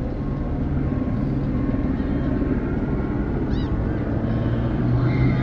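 Steady city traffic din with a vehicle engine's low hum. A few short high squeaks come about three and a half seconds in, and near the end a higher whine joins as the noise swells a little.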